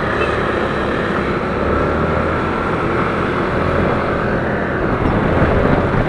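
Motorcycle engine running steadily while riding in traffic, with road and wind noise on the bike-mounted camera.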